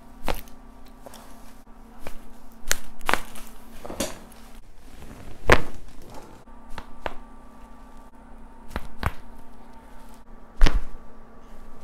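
A dozen or so sharp cracks and pops at irregular intervals, the loudest about halfway through and near the end: spinal joints cracking as they are adjusted by hand, the audible release of the joint.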